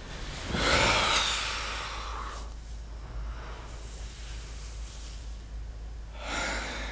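A man breathing out heavily: one long sighing breath starting about half a second in and fading over about two seconds, then a shorter breath near the end.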